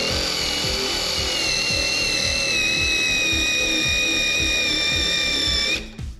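Power drill spinning a bolt deburring/trimming bit against the cut end of a steel M10 bolt: a steady high whine that sags slowly in pitch as it loads up, stopping shortly before the end. The bit has no carbide cutter and is rubbing and heating more than cutting.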